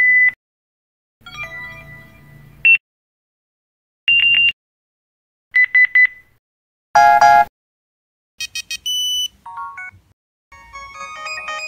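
A string of mobile phone battery-low and battery-empty alert tones, one phone after another with short silences between: single electronic beeps, three quick beeps, a brief chord and a short run of stepped beeps. They include the battery-empty tone of newer BlackBerry phones, the Kyocera Blade, Phantom and SE44 battery-low tone, and the Sony Ericsson J210i battery-low jingle near the end.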